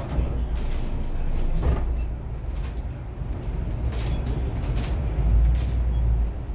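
Steady low rumble of a city bus's engine and road noise heard from inside the passenger cabin, with a few light rattles and creaks from the bus's interior fittings.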